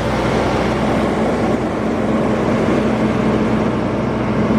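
Twin-turbo V12 of a 2012 Mercedes-Benz S65 AMG idling steadily, a low even hum with a constant drone.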